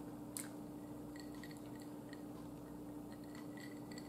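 Faint chewing of air-fried food with scattered small clicks, the sharpest about half a second in, over a steady low hum.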